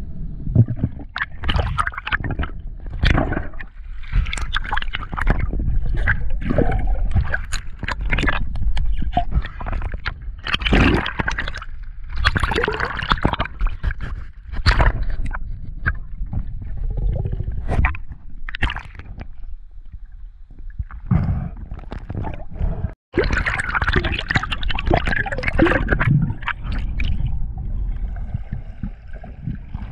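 Water gurgling and sloshing against an underwater camera, in irregular rushes and knocks as the spearfisher moves through the water, with a brief cut-out about two thirds of the way in.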